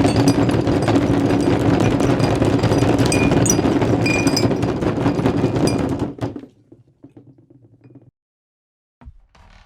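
Dense, continuous clatter of footsteps and knocks on a wooden floor that fades out about six seconds in. After a moment of silence, separate footfalls on wood begin near the end.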